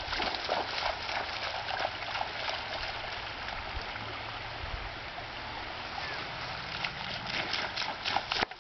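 Lake water lapping and splashing in a steady wash, with a few small splashes near the end.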